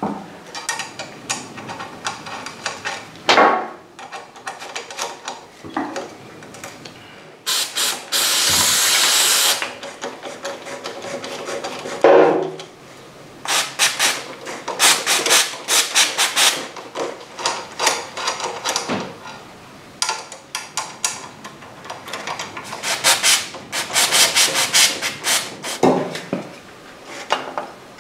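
Quick repeated scraping and rubbing strokes of a hand tool working grime out of the floating bobbins of a motorcycle's front brake disc, which are jammed up with dirt so the disc cannot float. About eight seconds in comes a two-second hiss of aerosol brake cleaner, with a few knocks of the tool against the disc.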